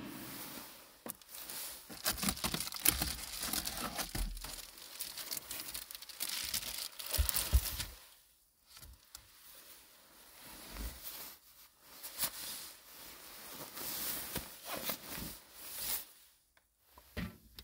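Nylon puffy sleeping bag rustling and crinkling as someone shifts around inside it. It comes in irregular bursts, with a brief lull about halfway through and another near the end.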